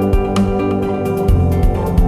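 Background music: an instrumental track with plucked guitar over a steady beat and bass.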